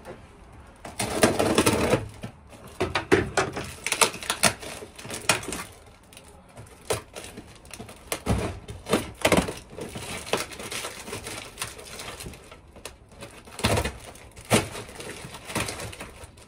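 Cardboard parcel being opened by hand: packing tape cut and torn, with the flaps and paper packing rustling and crackling. Irregular clicks and knocks are scattered through it.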